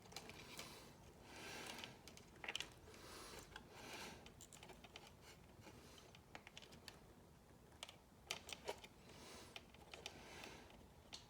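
Faint scattered clicks and soft rustling of small plastic wire-harness connectors and parts being handled, with a short flurry of clicks near the end.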